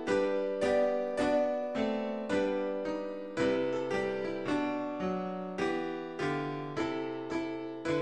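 Solo keyboard music with a piano sound: chords struck about twice a second, each one fading away before the next.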